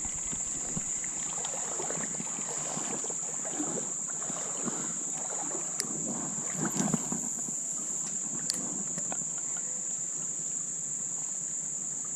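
Steady high-pitched chorus of insects at dusk, with faint irregular splashing and rustling underneath.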